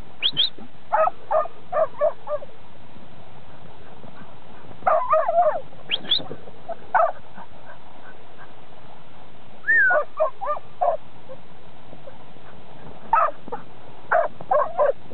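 Herding dog, a kelpie, barking at sheep in short bursts of one to five quick barks, with gaps of a second or more between the bursts.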